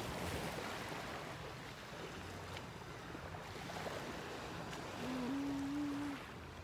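Small sea waves washing onto a sandy beach, an even rushing noise with wind on the microphone. About five seconds in, a short low steady hum lasts for about a second.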